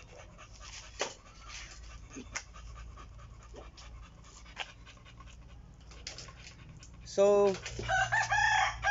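Quiet yard with a few faint clicks, then about seven seconds in a rooster starts crowing loudly in long, drawn-out calls.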